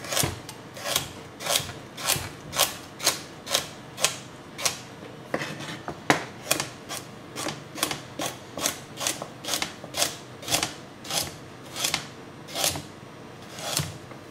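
Chef's knife slicing carrots into rounds on a plastic cutting board: a steady row of sharp knife taps on the board, about two a second.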